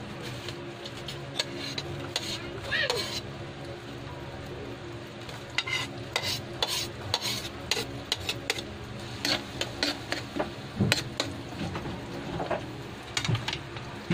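Chopped garlic frying in melted margarine in a wok, with a metal spoon scraping and clinking against the plate and the pan; the clinks come thick and sharp from about halfway through.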